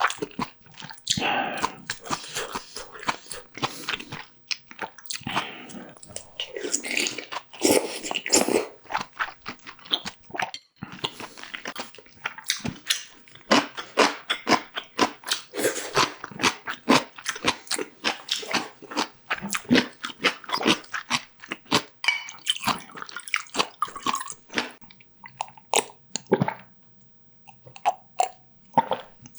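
Close-miked eating sounds of a person chewing and biting a Korean meal of sundae gukbap, boiled pork and hamburg steak. Many short, irregular clicks and chews follow one another, easing off briefly near the end.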